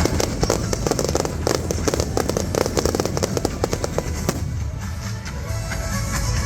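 Fireworks crackling in a dense, rapid string of small bangs that dies away about four seconds in, with music playing underneath.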